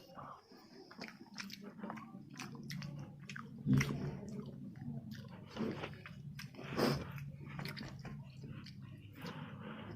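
Close-up chewing and biting of deep-fried chicken pakora, with many small crunchy clicks and two louder bites about four and seven seconds in. A steady low hum runs underneath.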